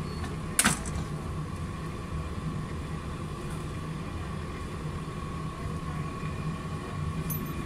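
Quanti-Tray sealer running, a steady motor hum with a faint whine as its rollers draw the tray through to heat-seal it. A single sharp click about half a second in.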